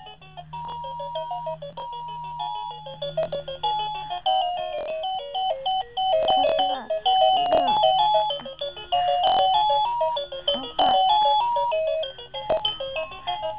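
An electronic beeping melody plays in stepped single notes, with a baby cooing over it in a few drawn-out coos that rise and fall from about six seconds in.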